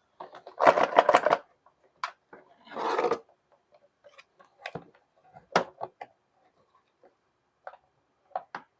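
Hard plastic insert of a Craftsman Versastack case being worked out along its grooves. A burst of rattling clatter comes about half a second in, a scraping rasp around three seconds, then scattered clicks and knocks as it comes free.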